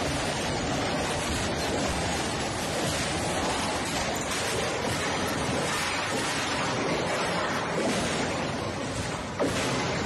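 Train of flat wagons loaded with rails rolling past a station platform, one rail sticking out of the load beyond the loading gauge: a steady noisy rush, with one sharp knock near the end.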